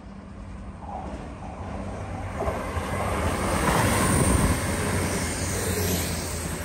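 A Class 220/221 Voyager diesel-electric train passing at speed: a steady low engine hum under a rush of wheel and air noise that builds to a peak about four seconds in, then starts to fade.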